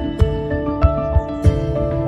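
Background music with held notes over a steady beat, about one and a half beats a second.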